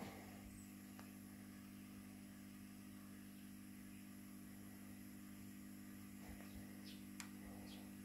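Faint, steady low mains hum with a couple of small clicks.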